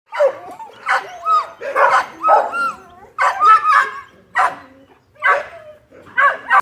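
A dog barking repeatedly, about a dozen short yelping barks in quick, irregular succession.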